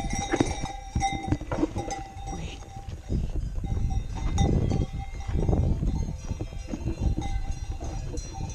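Cowbells on grazing cattle, clanking and ringing irregularly, over a low rumble that swells about four to six seconds in.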